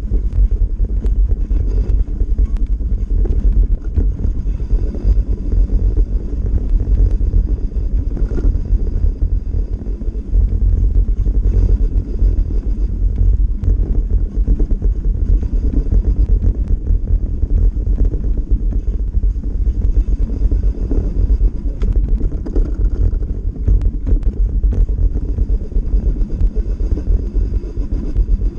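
Continuous low rumble of a fat bike's 4.8-inch Schwalbe Jumbo Jim tyres rolling fast over snow, mixed with wind buffeting the mounted camera's microphone, with frequent small knocks from bumps in the trail.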